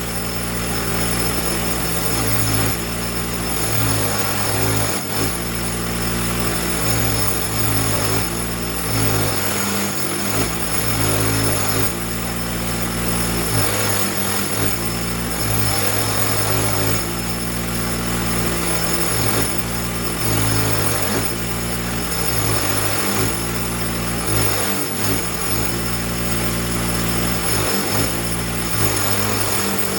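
Motor-driven wire wheel running and brushing rust and scale off a large steel adjustable wrench: a steady motor drone with a dense scratchy hiss and a constant high whine.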